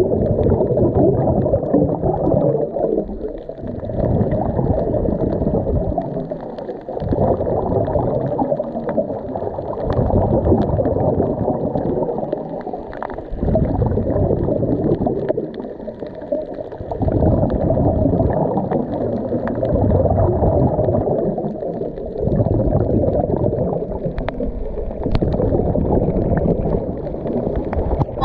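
Scuba regulator exhaust bubbles and water noise, heard muffled through an underwater camera housing. The rushing gurgle swells and eases every few seconds with the diver's breathing.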